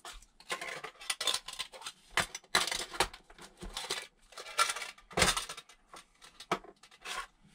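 Small fishing-tackle items and their plastic packaging handled on a tabletop: irregular rustling and crinkling with light clicks and clinks.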